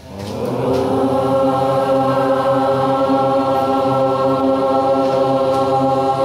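A steady drone held on one low note, swelling in over the first second and then sustained without a break.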